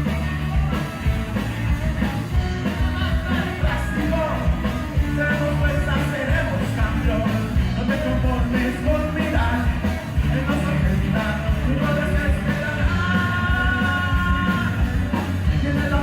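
Live rock band playing loudly: drums, bass and electric guitar, with a voice in the mix and a held high lead line near the end.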